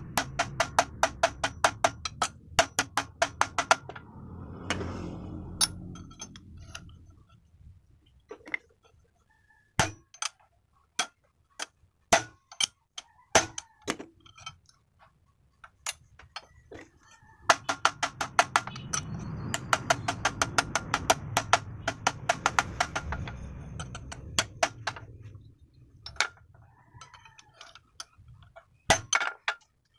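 Hammer blows on the end of a steel tube resting on a bench vise's anvil, flattening the tube end: fast runs of about five blows a second near the start and again past the middle, with a low rumble under them, and scattered single knocks in between and near the end.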